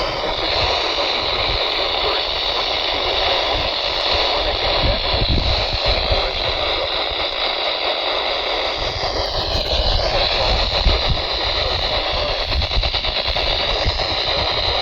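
Radio static: a steady hiss from a weather radio receiver on a weak signal, with a brief whistle that dips and comes back up about nine to ten seconds in.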